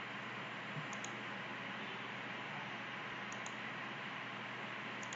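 Steady low hiss of a desk microphone's room tone, with a few faint mouse clicks, about one second in, twice at about three and a half seconds, and near the end.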